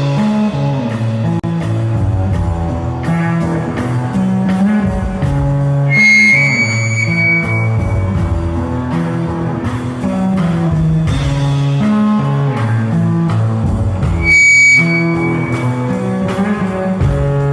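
A live rock band with electric guitar and bass plays an instrumental passage without vocals, the bass stepping through the chord changes. Two short, bright high held notes cut through, about six seconds in and again near the end.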